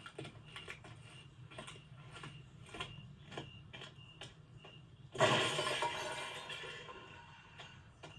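A run of light clicks and ticks, then a sudden crash about five seconds in, like something shattering, that fades out over about two seconds.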